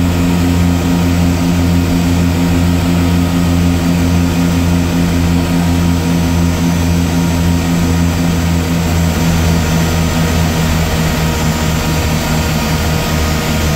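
Twin turboprop engines and propellers of a de Havilland Canada DHC-6 Twin Otter seaplane droning steadily, heard inside the cockpit during the landing approach. The low propeller hum eases slightly lower in pitch in the second half as power comes back.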